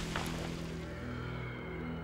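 The rumbling tail of a large explosion dies away over the first half-second, giving way to low, sustained orchestral notes from the film score.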